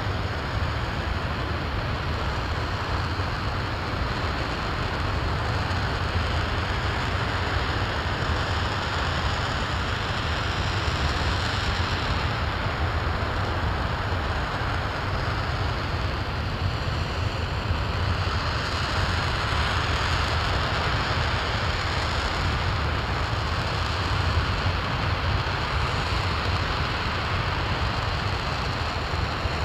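RS-25 liquid-hydrogen/liquid-oxygen rocket engine firing at steady thrust: a continuous deep rumble with a broad hiss, unchanging in level.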